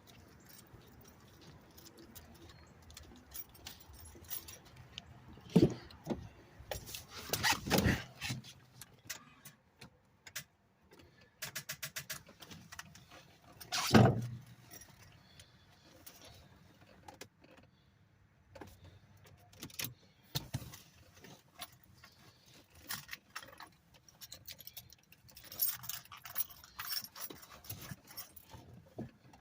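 Keys jangling among scattered clicks and rattles, with a few louder knocks and a quick run of clicks partway through.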